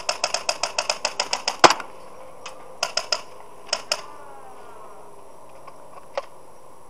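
Airsoft gun firing a rapid string of shots, about nine a second for over a second, followed by a few single and paired shots.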